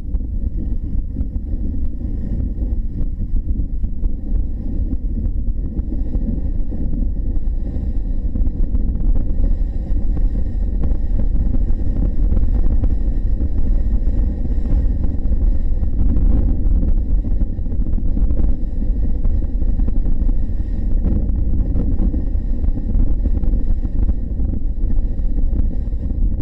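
Steady low rumble of wind and road noise while riding a motorcycle at highway speed.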